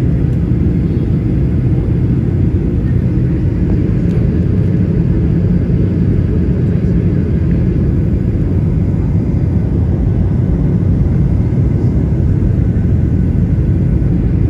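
Airliner cabin noise: a steady low rumble of jet engines and airflow heard inside the passenger cabin as the plane flies low over the city on its approach.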